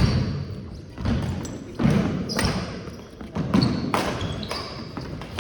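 Badminton rally in an echoing hall: sharp smacks of rackets hitting the shuttlecock and footfalls on the court, several hits in a few seconds, with the loudest one at the start and a few short shoe squeaks.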